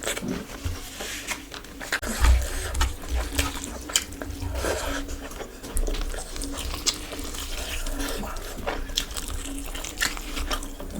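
Close-up wet eating sounds: chewing and lip-smacking on curry and rice, with many small sticky clicks. A low thump comes about two seconds in.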